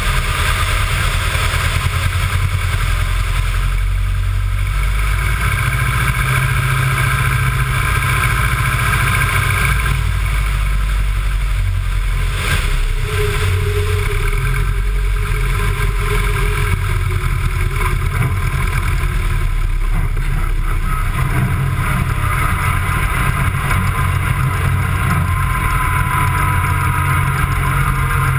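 Wittman Tailwind light aircraft's piston engine and propeller running steadily under power, with a continuous rush of airflow noise.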